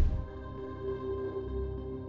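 Calm ambient background music of steady held notes.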